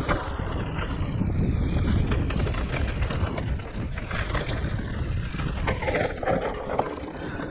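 Giant e-mountain bike riding fast down a rough enduro trail: a steady rush of wind on the camera's microphone and tyres over dirt, with frequent small knocks and rattles from the bike.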